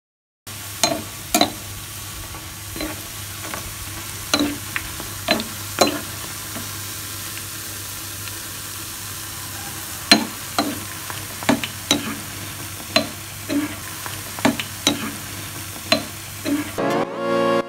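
Luqaimat dough balls deep-frying in hot oil with a steady sizzle, while a metal spoon stirs them, knocking and scraping against the pan at irregular moments, often about once a second.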